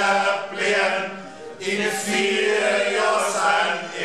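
Several men singing together in a chant-like unison, in short held phrases with brief breaks between them.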